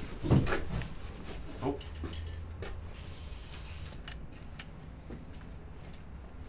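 Blue paint being splattered onto a vehicle chassis: short hissing and rubbing sounds with scattered light spattering ticks. A louder short burst comes just after the start and a smaller one later.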